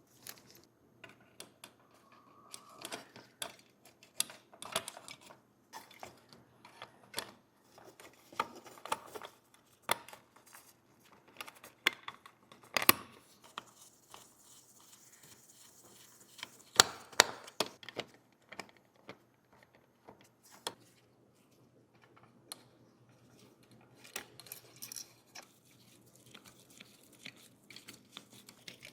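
Irregular clicks, taps and light scrapes of small tools and parts being handled, set down and worked by hand, with a brief soft hiss about halfway through.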